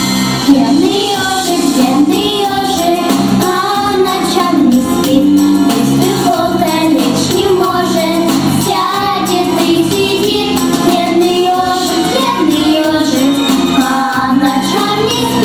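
A girl singing a children's song solo into a microphone over instrumental accompaniment with a steady beat.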